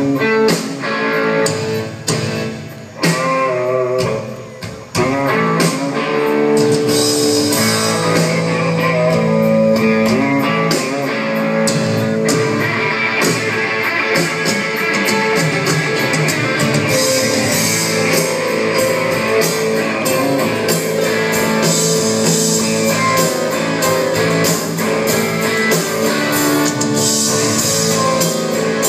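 Live rock band playing an instrumental passage led by electric guitar over a drum kit. The first few seconds are stop-start hits with brief drops, then the full band plays on steadily.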